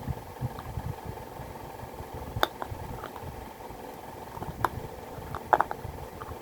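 Close-up chewing of a crunchy food, with a few sharp crunches about two and a half seconds in, near the middle and a cluster just before the end.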